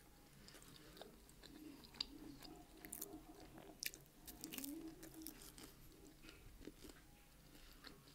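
Quiet close-miked chewing and biting of a slice of chicken, sweetcorn and mushroom pizza, with a bite and a cluster of soft wet mouth clicks around the middle.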